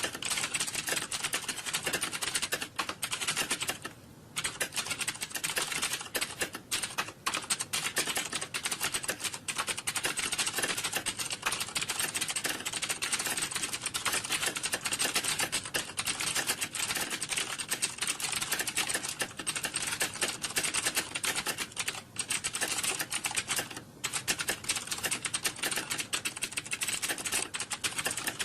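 Computer keyboard typing: a dense, continuous clatter of rapid key clicks, with brief lulls about four seconds in and again near the end.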